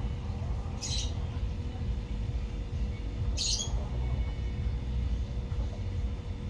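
Car engine idling with a faint steady whine from the power steering pump, broken by two short high squeaks, about a second in and again about three and a half seconds in.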